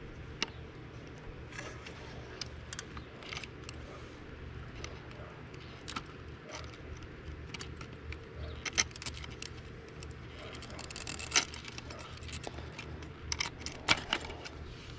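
Light clicks, taps and scrapes of a steel pick tool working at the plastic electrical plug on a C5 Corvette fuel pump, pressing the connector's locking tab to release it. The clicks are scattered, with a longer scrape about two-thirds of the way through and a few sharper clicks near the end.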